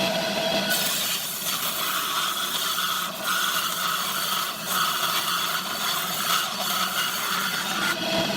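Electric power tool working pallet wood, its motor running steadily with a whine that drops slightly in pitch about a second in, as under load.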